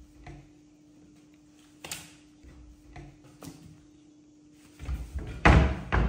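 A tall cabinet door rattling and banging in a loud cluster near the end as a young monkey jumps onto it and climbs its long bar handles. Before that come a few light taps and one sharper knock, over a steady low hum.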